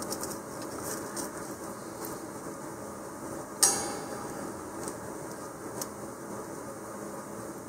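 Fingers rubbing white glue over a styrofoam ball, with light ticks from the bamboo skewer legs being handled. One sharp knock with a short ring about three and a half seconds in.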